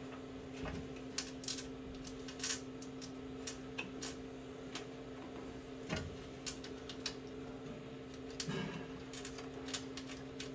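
Irregular light clicks and taps of wires and small connectors being handled and pushed into the terminal block of a Victron MultiPlus-II inverter/charger during wiring, over a steady low electrical hum.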